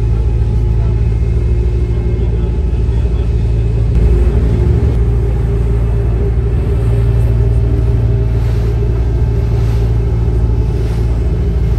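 Tour boat's engine running with a steady low rumble.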